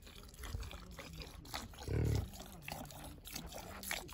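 Yak being milked by hand: jets of milk squirting into a wooden pail in quick spurts, a few a second. A short low grunt about two seconds in is the loudest sound.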